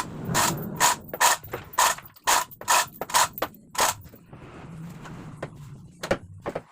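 Ratcheting hand mechanism clicking in a quick series of strokes, about two or three a second, pausing for a couple of seconds and then giving a few more strokes near the end, as it is worked during a car engine installation.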